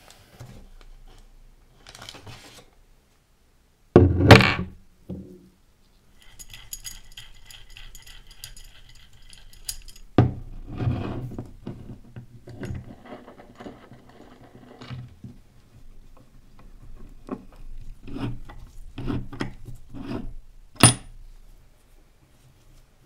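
Close-up workbench handling of small metal parts and a small bench vise: a loud thump about four seconds in, then a stretch of rapid ticking with a metallic ring, followed by scattered knocks, clicks and scraping, with a sharp click near the end.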